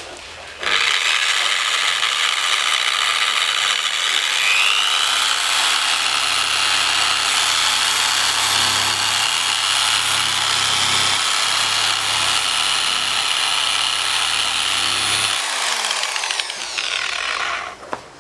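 A handheld power tool spinning a polishing pad on the plastic foglight lens runs steadily with a high motor whine for about fifteen seconds, then slows and spins down near the end.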